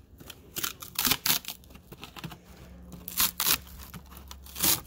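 Rotten lauan plywood being peeled and torn by hand off the foam core of a delaminated RV sidewall: a series of short ripping and cracking tears, clustered around one second in and again after three seconds.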